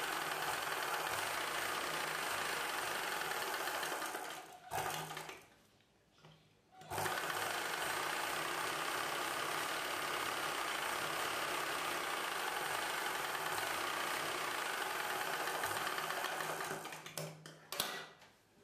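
Ralson sewing machine running steadily as a blouse seam is stitched. It stops about four seconds in, runs again about two seconds later for roughly ten seconds, then stops, with a few light handling clicks near the end.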